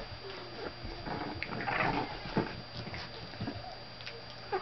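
Olde English Bulldogge puppies play-fighting: small puppy vocal noises mixed with scuffling and scrabbling paws, and a sharp knock about two and a half seconds in.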